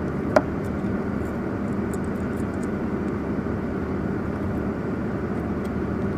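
Steady road and engine noise of a car driving, at an even level throughout.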